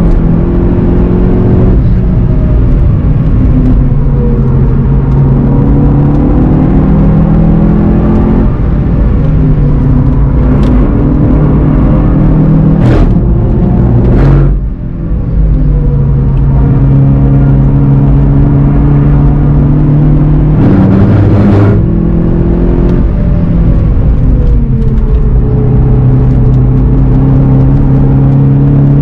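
VW Golf 7 GTI TCR's turbocharged four-cylinder engine running hard on track, with the pitch stepping and sliding as it changes gear and revs. There is a brief lift off the throttle around the middle, and a few sharp clicks around it.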